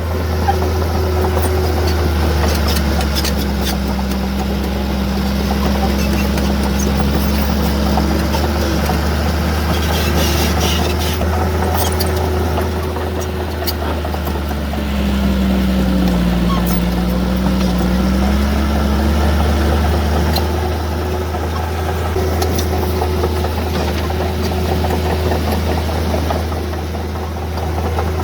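Heavy diesel engine of earthmoving machinery running, its note dipping and rising now and then as it works, with scattered sharp clanks.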